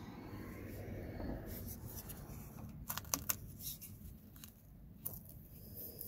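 Quiet room tone with a few short, sharp clicks and light rustles, a cluster about three seconds in and one more near five seconds.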